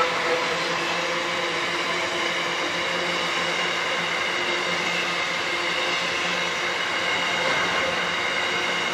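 Freight train of covered hopper wagons rolling past at trackside, a steady noise of wheels on rails with faint high steady squealing tones from the wheels above it.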